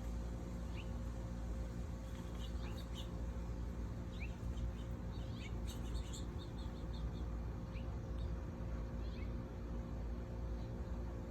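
Small backyard songbirds giving short, quick rising chirps, scattered singly and in brief flurries, over a steady low hum.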